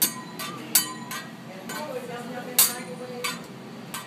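Hibachi chef's metal spatula and utensils clinking against the steel teppanyaki griddle: about five sharp, irregular clinks, some with a brief ring.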